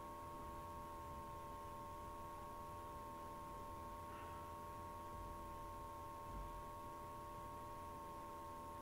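Steady electrical hum made of several constant tones, with a clear mid-pitched whine on top, over faint room noise.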